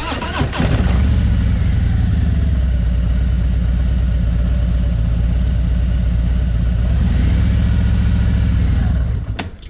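Motorcycle engine restarted after a stall, running steadily with a low pulsing note, then cutting off about nine seconds in.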